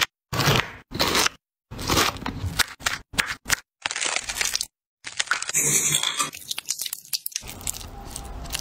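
Close-miked food-preparation sounds in short, abruptly cut clips: crunching as fresh pineapple is cut and chopped, wet squishing as the pulp is pressed through a metal strainer with a spoon, then a silicone spatula stirring chopped pineapple in a pan near the end.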